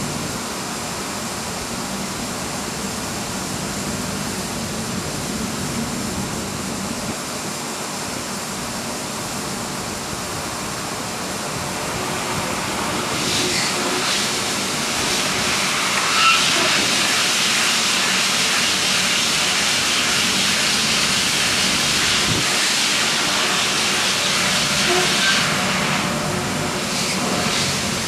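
Shopping-basket washing machine running: a steady hiss of water spray over a low hum, growing clearly louder partway through and easing off near the end.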